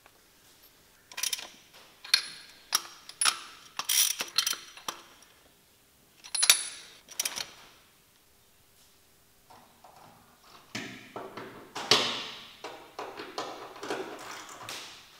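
A ratchet wrench with a spark plug socket clicking and clinking as spark plugs are run into the cylinder head: a series of separate sharp metal clicks. From about eleven seconds in comes a denser run of clattering and rattling as parts are handled.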